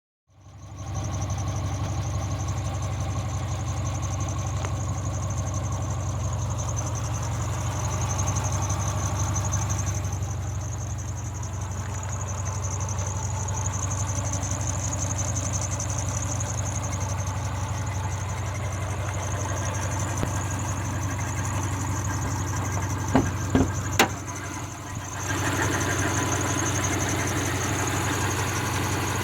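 2003 Subaru Forester's flat-four engine idling with a steady high chirping squeak running through it, which tightening the drive belts has not cured. A few sharp clicks come about three-quarters of the way in, and the sound grows louder just after.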